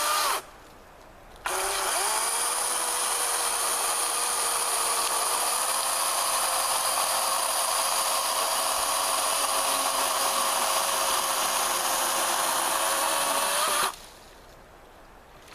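Chainsaw cutting into a pecan log: a short blip of the motor, then a long cut of about twelve seconds at a steady high pitch that stops abruptly.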